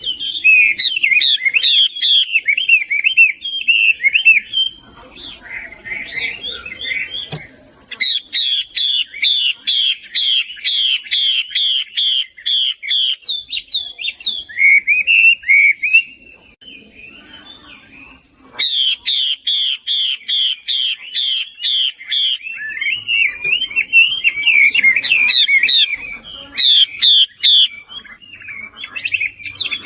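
A hwamei (Chinese laughingthrush), which the uploader calls a female, singing in fast runs of repeated rising whistled notes, about three to four a second. The song breaks into a softer, jumbled passage a few seconds in and pauses for about two seconds past the middle before the runs resume.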